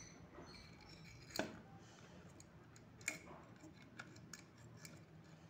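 A few sharp, faint clicks and taps over near silence, the two clearest about a second and a half in and about three seconds in: a plastic LED driver box and its cable connector being handled on a wooden table.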